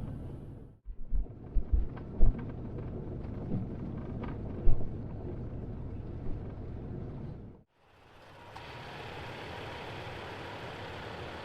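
Off-road truck driving a rough dirt trail: a steady low rumble broken by several heavy low thumps, then, after a cut, a steady brighter rushing noise.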